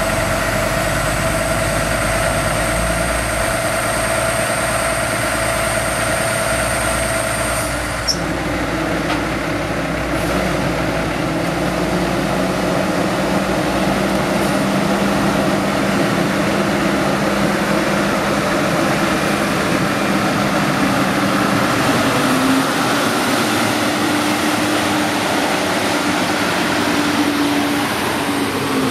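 International ProStar semi truck's diesel engine running steadily at idle. About eight seconds in there is a click and a high whine stops; near the end the engine note rises a little.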